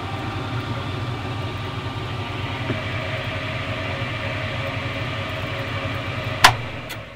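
Restored 75-year-old Tauco bench drill press running, its freshly cleaned and oiled motor and belt drive giving a steady hum that is moderately noisy. About six and a half seconds in the push-button starter clicks off and the motor begins to spin down.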